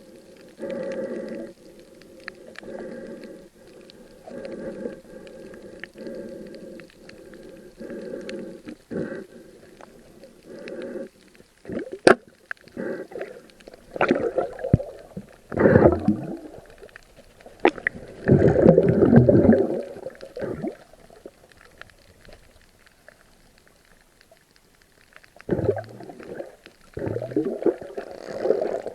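A snorkeller breathing through the tube with water gurgling around it: regular hollow pulses about every two seconds at first, then heavier splashing and bubbling bursts in the second half.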